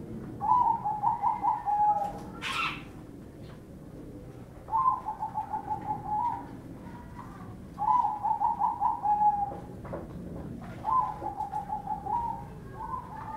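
Caged zebra doves (perkutut) singing their cooing song: about four phrases, roughly every three seconds, each a quick rolling run of short notes ending in a longer coo.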